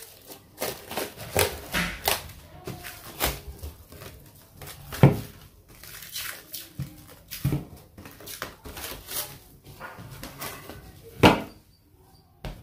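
Plastic cling film crinkling as it is pulled and pressed around a ball of dough, with two sharp knocks on the table, one about five seconds in and one near the end.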